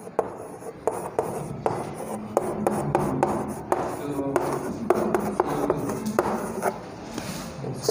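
Chalk writing on a blackboard: an irregular run of sharp taps and short scratching strokes as characters are written out.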